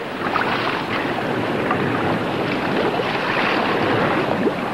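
Boat at sea: a steady rushing noise of motor, water and wind together.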